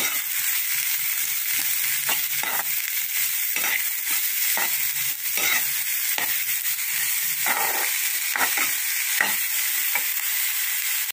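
Diced green capsicum and onion sizzling in hot oil in a kadai while being sautéed, with a metal spatula scraping across the pan about once a second.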